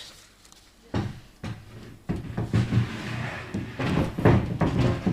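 Wooden wardrobe panels knocking and clattering as the cabinet is handled during assembly: a couple of separate knocks about a second in, then a busy run of irregular knocks from about two seconds in.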